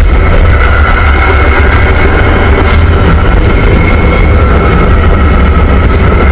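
Train interior noise while under way: a loud, steady low rumble with a steady high-pitched whine running over it.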